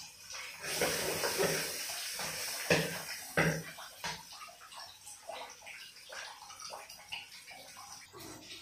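Water running and splashing for about three seconds, with two sharp knocks in the middle, then scattered small splashes and clicks.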